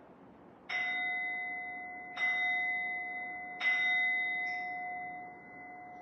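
Hand-held singing bowl struck three times with a mallet, about a second and a half apart. Each strike rings on in a clear, sustained tone that fades slowly and is still ringing at the end.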